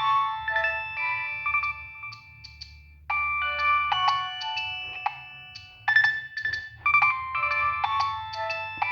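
Nokia 6585i mobile phone playing a polyphonic ringtone: a melody of short, bell-like notes, several sounding together, in quick phrases with brief pauses between them.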